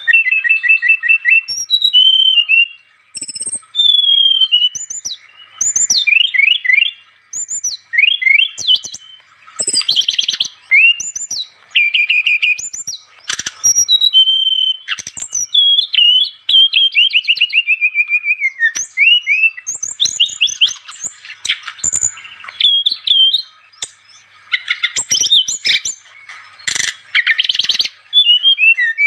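Sikatan rimba dada coklat (brown-chested jungle flycatcher) singing a loud, fast, varied song: whistled notes, rising and falling slurs and short trills, delivered in bursts with brief pauses.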